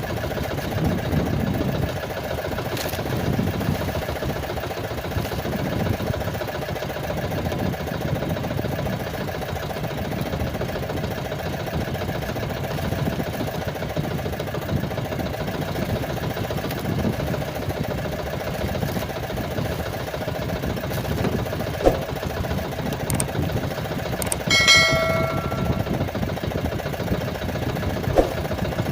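A small engine runs steadily at idle. About 25 seconds in, a short bell-like ring with several overtones sounds for a second or so over it.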